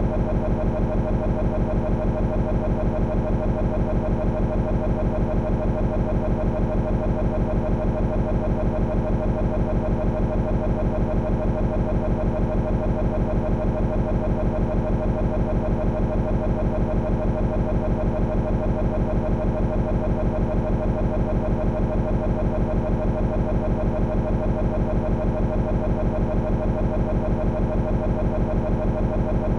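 Digital glitch noise from a corrupted recording: a tiny scrap of audio looping over and over, giving a steady, unchanging buzzing drone with a fast, even pulse.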